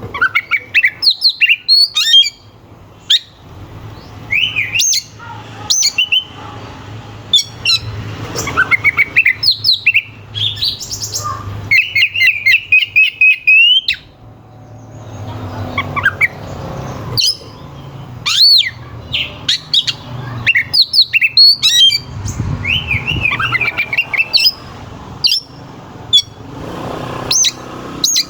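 Oriental magpie-robin (kacer) singing loudly in an unbroken, varied stream of sharp whistles, rising and falling glides and harsh notes, with a fast run of rapidly repeated notes about twelve seconds in.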